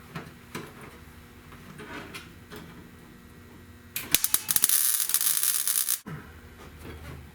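Welder laying a tack weld on a sheet-metal floor patch: about two seconds of loud, crackling arc sizzle that stops abruptly, after a few seconds of quiet clicking and handling as the torch is set in place.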